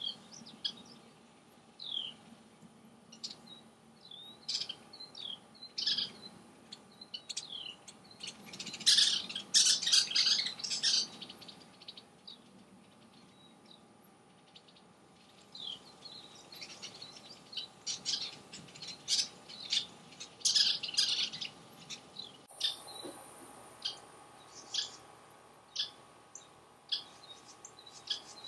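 Western kingbirds calling in alarm as they mob a great horned owl: repeated sharp, high chirps, with bursts of rapid chattering. The chattering is loudest about nine to eleven seconds in and again around twenty seconds.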